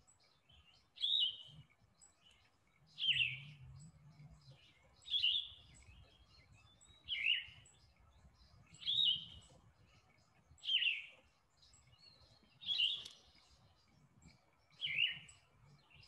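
Yellow-throated vireo singing: short falling phrases repeated about every two seconds, eight in all, with long pauses between.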